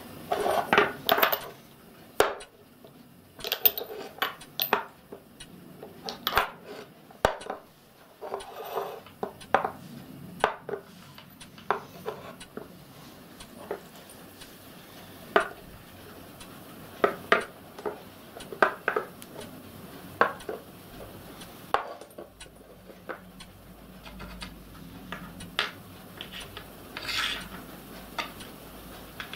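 Metal burner parts (steel tubes, small metal cups and brass nuts) being picked up, slotted into a steel plate and set down on a wooden bench: irregular clinks and knocks throughout, the loudest in the first couple of seconds.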